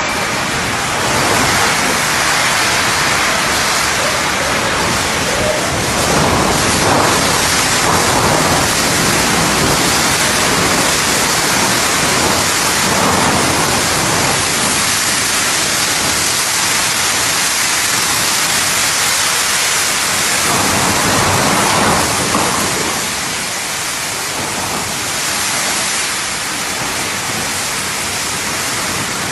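Torrential rain and wind gusts of a severe thunderstorm, heard from inside a wooden shed as one loud, steady roar of rain beating on the corrugated metal roof. It eases slightly in the last few seconds.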